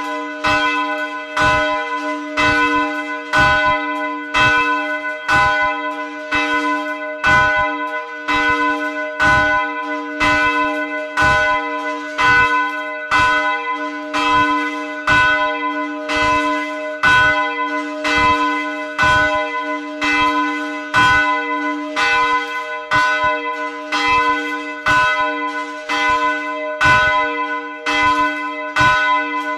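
Swinging church bell, the middle bell of a church tower, ringing steadily with its clapper striking about once a second. A low hum rings on without a break under the evenly spaced strikes.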